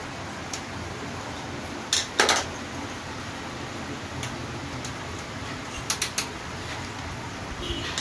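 Scattered small metallic clicks and clacks from the mechanism of a Brother portable typewriter being handled and worked on. The loudest is a quick double clack about two seconds in, and a quick group of three comes near six seconds; a steady hiss runs underneath.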